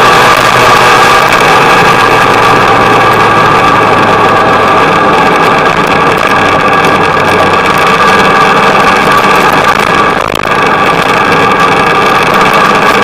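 Motorcycle engine running steadily at cruising speed, heard from a camera mounted on the bike, over a steady rush of noise; about ten seconds in the level dips briefly and the engine pitch shifts.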